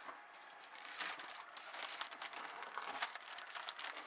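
Packaging being handled: plastic wrapping crinkling and rustling against foam and cardboard, in a run of small irregular crackles that gets busier about a second in.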